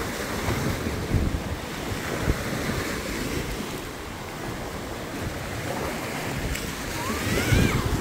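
Small surf breaking and washing up a sandy beach, with wind buffeting the microphone in gusts.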